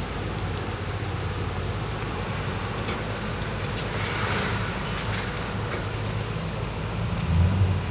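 Motor vehicle engines running in a low, steady rumble, swelling briefly near the end as a vehicle pulls out close by.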